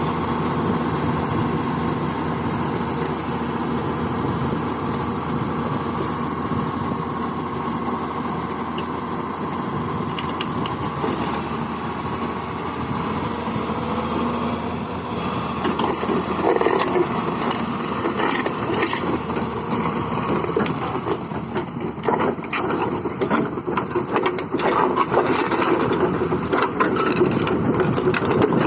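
Hyundai 210 excavator's diesel engine running steadily, joined from about halfway through by a run of irregular metallic clanks and knocks.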